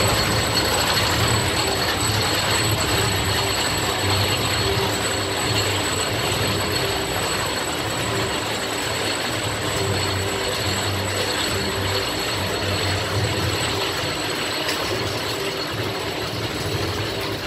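Chain lift of a Rocky Mountain Construction single-rail roller coaster hauling a loaded train up the lift hill: a steady mechanical clatter of chain and anti-rollback ratchet.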